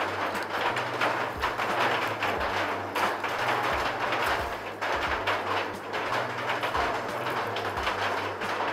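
Background music with a bass line that moves through low notes.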